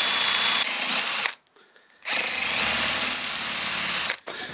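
Cordless drill boring into a bentwood chair rail, trying to drill out a pin nail embedded in the wood. The drill runs steadily, stops just over a second in, then runs again for about two seconds before cutting off.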